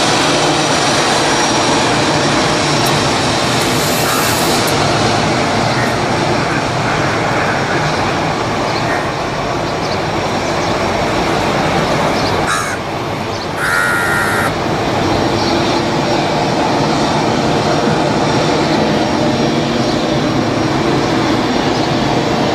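Steady jet engine noise from an Airbus A320 taxiing, with a few short crow caws over it, the clearest a little past halfway.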